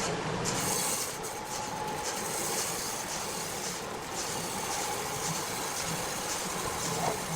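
Steady mechanical running noise of machinery, with an even rattle and no change in pitch.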